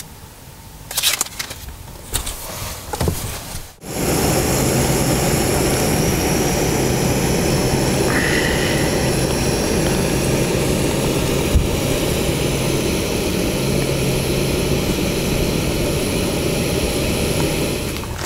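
Soft handling noises, then, starting suddenly about four seconds in, a remote-canister gas backpacking stove burning under a metal percolator coffee pot: a steady rushing hiss with a low hum beneath it.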